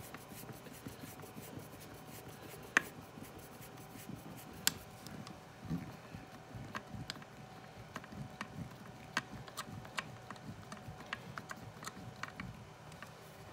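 Faint, irregular clicks and ticks from a hand hex driver tightening a screw into a plastic battery strap mount, the screw cutting its own threads in the partially tapped hole.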